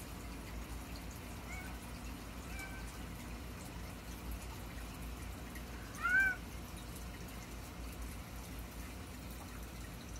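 A house cat meowing: two short, faint meows, then a louder meow about six seconds in that rises and falls in pitch. It is crying for its owner, who is away from home.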